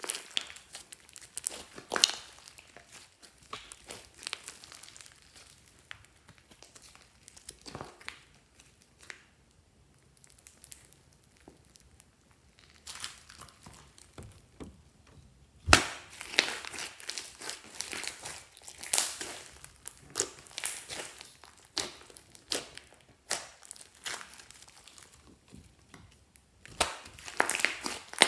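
Hands squeezing, stretching and pressing a large glittery slime with foam beads in it, making irregular sticky crackles and little pops. There is a quieter stretch in the middle, then one sharp snap followed by dense crackling, which picks up again near the end.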